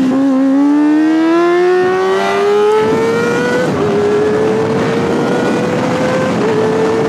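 Kawasaki ZX-25R's 250cc inline-four engine at high revs, heard on board, pulling hard out of a corner: the pitch dips at first, then climbs steadily, drops sharply at an upshift about halfway and again near the end, and climbs again each time. Wind rushes over the microphone, growing with speed.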